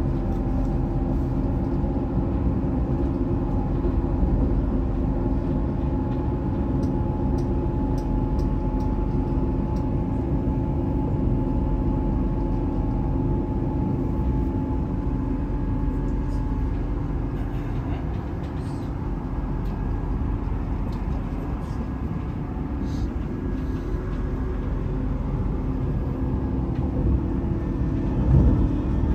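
Electric passenger train running along the line: a steady low rumble of wheels on rail with a steady hum over it and faint light clicks. A brief louder knock comes near the end.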